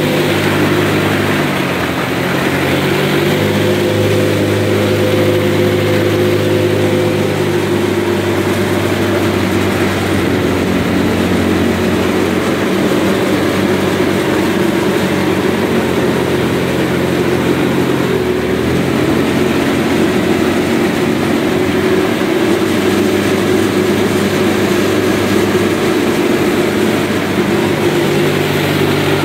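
Engine of a home-built jet boat running steadily under way on a test run, with small shifts in pitch, over the rush of water.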